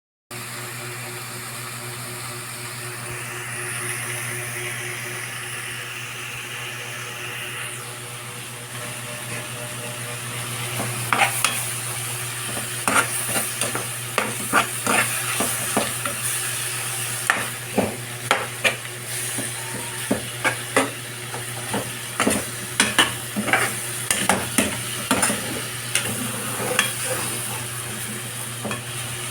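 Food sizzling in oil in a cooking pan. From about ten seconds in, a metal utensil stirs it, scraping and clacking against the pan in quick, irregular strokes.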